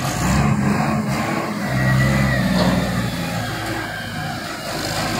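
Diesel engine of a Kalmar reach stacker running hard under load while its boom lifts a heavy machine, getting louder about two seconds in.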